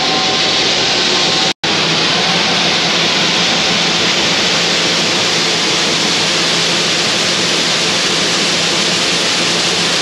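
Soybeans pouring from a grain cart's unloading auger into a semi grain trailer: a loud, steady rushing hiss, with the tractor running the auger underneath. The sound cuts out for an instant about one and a half seconds in.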